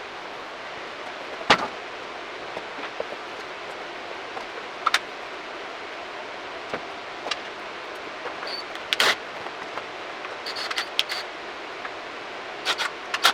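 Scattered sharp clicks and knocks of hand work on a motorcycle, parts and tools being handled, over a steady background hiss.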